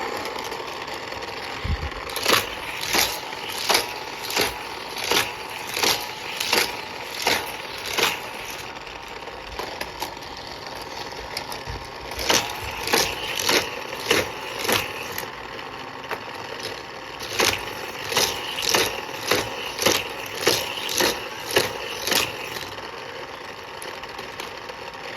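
Toy race track's electric motor, likely a Hot Wheels booster, whirring steadily. Over it come three runs of sharp plastic clacks, about one and a half a second, as the die-cast cars go round the track.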